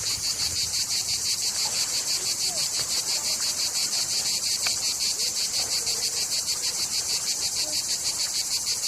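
Insects chirping in a steady, high-pitched chorus that pulses evenly at about five beats a second.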